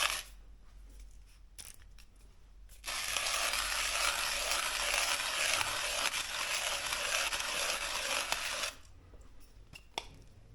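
Etzinger ETZ-I manual coffee grinder being hand-cranked, its burrs crushing beans at a fine, AeroPress-range setting: a steady grinding noise starts about three seconds in and stops suddenly about six seconds later. A few faint clicks come before it.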